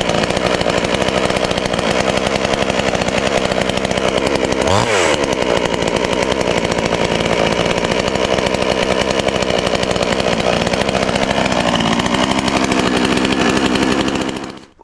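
Pinkway 63cc two-stroke chainsaw running steadily just after its first start, with the chain brake on. About five seconds in, the engine speed briefly dips and recovers. Near the end it is switched off and the engine stops suddenly.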